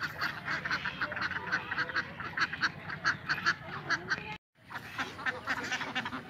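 A flock of domestic ducks quacking in quick short calls, several a second. The sound cuts out for a moment about four seconds in.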